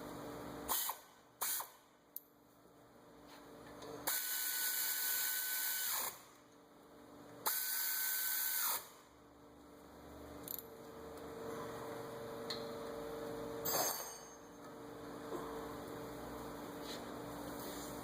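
Cordless power drill run twice, each time with a steady whine that climbs as it spins up and drops as it stops, about two seconds and then a second and a half, driving in the front brake caliper bolts. A few sharp tool clicks come just before.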